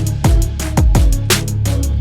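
Electronic background music with a driving drum beat and deep bass.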